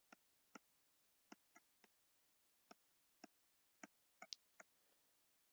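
Faint, irregularly spaced clicks of a digital pen tip tapping the screen while printing capital letters by hand, about a dozen in all.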